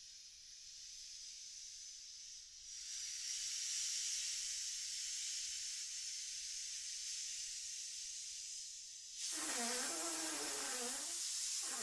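Air escaping from the neck of a rubber balloon: a steady hiss that gets louder a few seconds in, then, about nine seconds in, a loud wavering squeal as the stretched neck vibrates.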